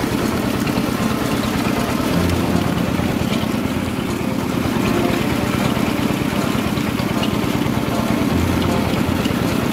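Homemade rice milling machine running steadily with a low drone while it mills rice.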